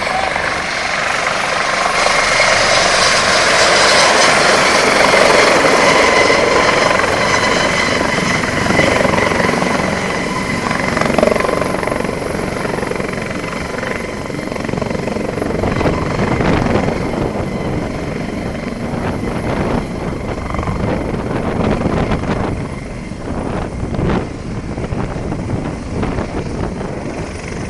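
Helicopter landing: turbine whine and rotor noise, loudest about four to six seconds in, then gradually easing. Irregular low gusty surges follow.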